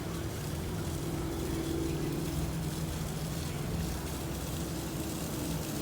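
A steady engine drone with a low, even hum, holding one pitch throughout.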